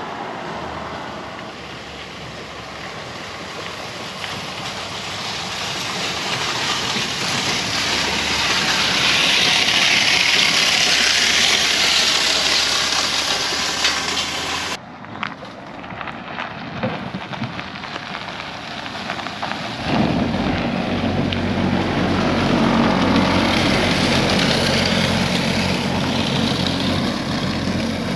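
A rushing noise that swells and then cuts off abruptly about halfway through. A few seconds later a steady engine hum with a low, even drone sets in.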